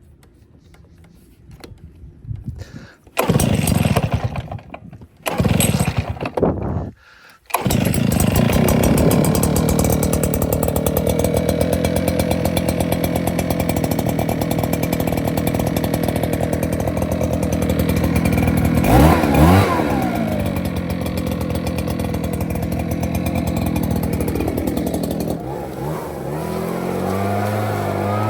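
Echo PB-9010T backpack leaf blower's two-stroke engine starting: two short bursts of running about three and five seconds in that cut off, then it catches about seven seconds in and runs steadily. Near twenty seconds in it revs up and back down briefly, and near the end it drops to a lower, wavering speed.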